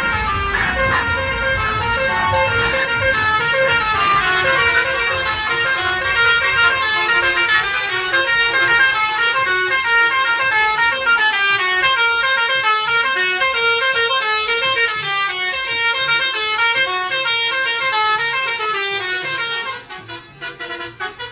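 A bus's multi-tone musical horn playing a melody of quick notes stepping up and down, breaking off near the end.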